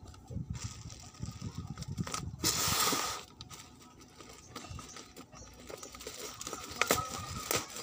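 Black bubble-lined plastic wrapping being torn open: one loud rip of just under a second, about two and a half seconds in, then quieter crinkling of the plastic with a few sharp clicks near the end.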